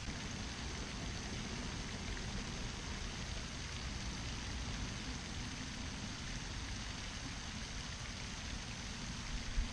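Steady outdoor background noise: an even hiss with a low rumble underneath and no distinct events, then a brief knock near the end.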